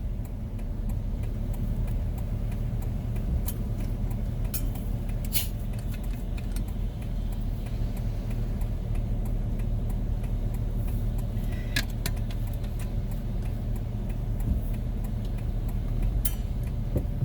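Steady engine and road noise inside a Ford van's cabin while driving, with a few sharp clicks or taps at irregular moments.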